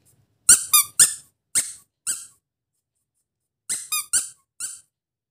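A cat's toy mouse squeaking as it is squeezed in the hand: about eight short, high-pitched squeaks in two runs of four, with a pause in the middle.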